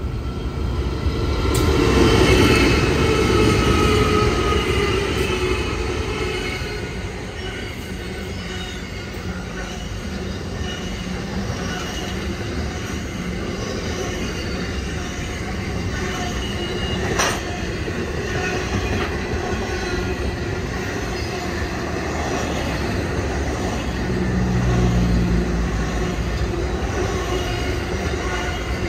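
Pacific National NR class diesel-electric locomotives passing close at speed. The engine sound is loudest a couple of seconds in and drops in pitch as they go by. It is followed by the steady rumble and clatter of container wagons rolling over the rails, with one sharp clank partway through and the low rumble swelling again near the end.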